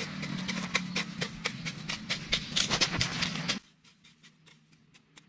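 Dense crackling and rustling of footsteps through dry field growth over a low steady hum, cutting off abruptly about three and a half seconds in and leaving only faint rustle.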